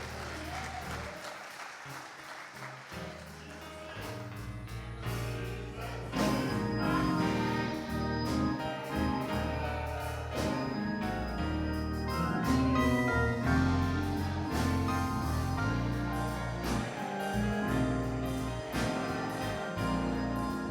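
Live church band playing gospel music, which swells to full band with bass and a drum beat about six seconds in. Hand clapping runs under the quieter opening.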